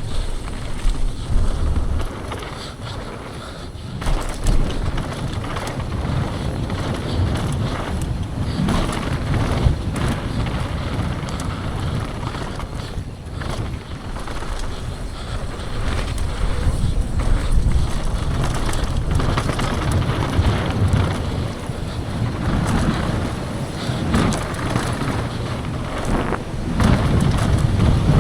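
Wind buffeting the microphone of a mountain biker's POV camera on a fast downhill descent, with the bike's tyres on dirt and scattered knocks and rattles from rough ground.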